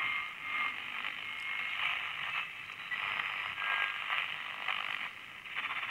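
Small transistor AM medium-wave radio's speaker giving a thin, tinny, steady hiss of static with a few faint short whistles and crackles: the hiss of a receiver between stations or on a weak signal.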